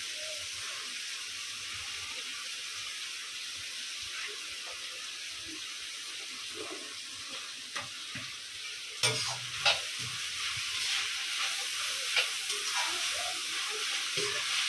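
Chopped cabbage and capsicum sizzling steadily as they sauté in a metal kadai. From about nine seconds in, a metal spatula clinks and scrapes against the pan as the vegetables are stirred.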